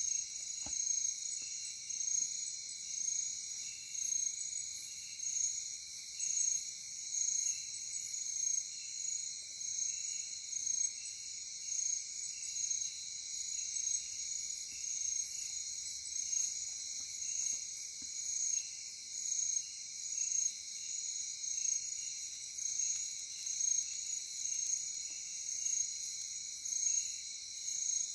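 Night insect chorus of crickets trilling continuously, high-pitched, with an even, regular pulsing rhythm.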